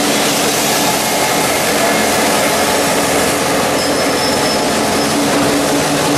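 Train running on its rails, a steady rumble with a low hum. About four seconds in comes a brief high-pitched wheel squeal.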